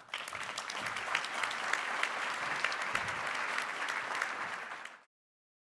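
Audience applauding, a dense patter of many hands clapping that cuts off abruptly about five seconds in.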